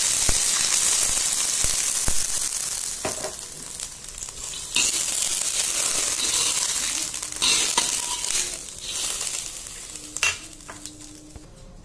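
Water poured into hot oil in a wok of frying onion and garlic, hissing and sizzling loudly. The sizzle surges again twice while a spatula stirs and scrapes the wok, then dies down near the end as the water settles into a bubbling simmer.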